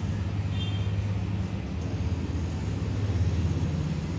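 A steady low rumble, with a brief faint high tone about half a second in.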